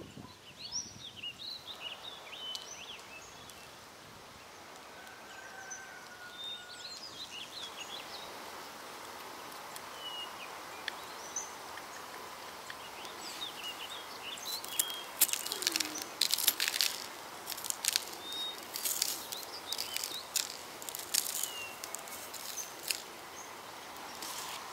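Birds chirping outdoors in short calls over a steady background hiss, with a run of sharp clicks and taps in the second half from the rusty dagger and tools being handled.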